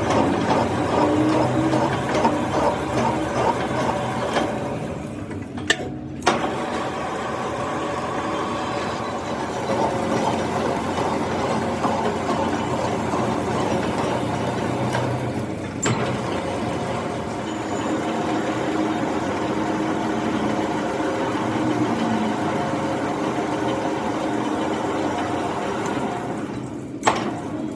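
Metal lathe running steadily, its motor and gears giving a hum with several held tones. A few sharp metallic clicks come about six seconds in, again mid-way, and once near the end.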